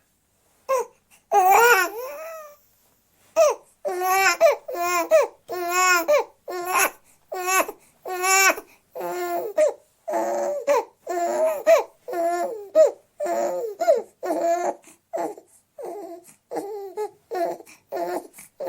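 Newborn baby crying in a rapid run of short, pitched wails, about two a second, after a brief pause near the start. In the second half the cries become shorter and choppier.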